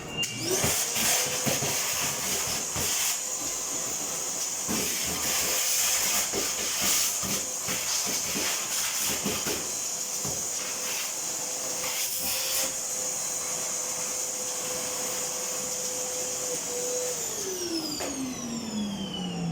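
Clothes dryer motor and drum spinning up quickly, running at a steady whine with a loud hiss and occasional knocks, then switched off and winding down with falling pitch near the end.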